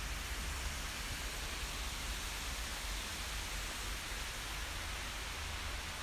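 Steady rush of a large waterfall pouring into its pool, an even hiss with a low rumble beneath.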